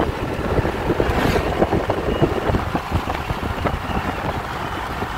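Road and engine noise inside a moving car, with wind gusting on the microphone through the open side window.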